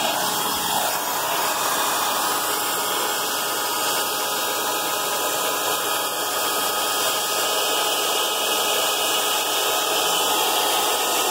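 Vacuum cleaner running steadily, a constant rushing hiss with no change in pitch, as it is worked over a truck's interior carpet.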